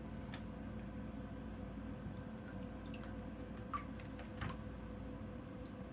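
Reef aquarium's circulation running: a steady hum of its pumps with a few drips and trickles of water, the loudest two close together near the end.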